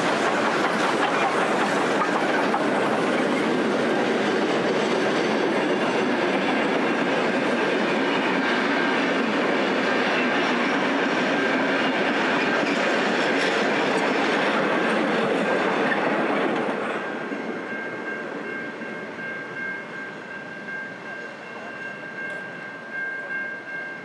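Broad-gauge steam train hauled by three steam locomotives climbing a grade: the locomotives' exhaust and the carriages' wheels on the rail joints go by loud and steady, then after about sixteen seconds the sound falls away as the train draws off, leaving a thin steady high tone.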